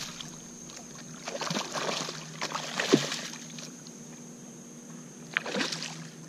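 Water splashing and sloshing beside a kayak as a hooked fish thrashes at the surface, in short bursts: one starting a little over a second in, the loudest just before three seconds, and a brief one near the end.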